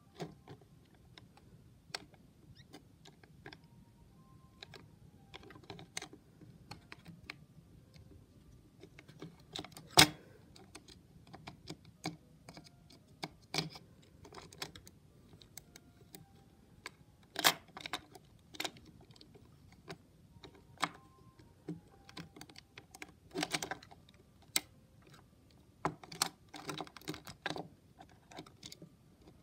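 Irregular clicks and light knocks of the small plastic parts of a Hexbug BattleBots Witch Doctor toy robot being handled and pressed together on a table. The sharpest knocks come about ten seconds in and again a little past halfway.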